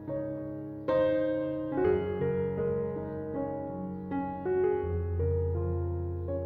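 Background music: a piano playing slow, held notes and chords, with a louder chord about a second in.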